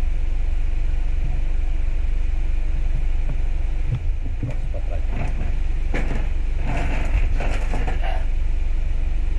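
A steady low hum runs throughout. From about four seconds in, light clicks and knocks come from hands handling a phone and small parts on a workbench.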